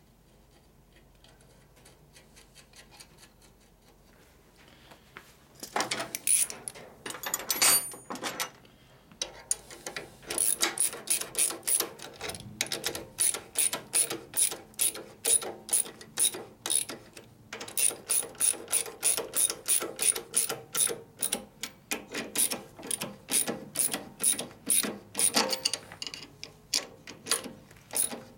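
Socket ratchet wrench clicking as a nut is run down to tighten a bolt. Fairly quiet for the first few seconds, then a quick run of clicks, then steady strokes of about two clicks a second.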